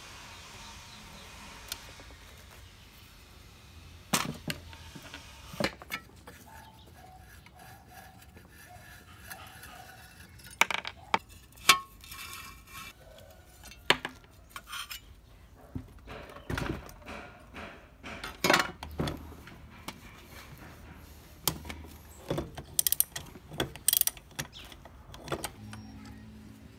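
Hand tools and loose metal parts clinking, tapping and knocking on a Honda GX160 engine as it is dismantled. The sounds are scattered, irregular sharp clicks and knocks, a few of them loud and ringing briefly.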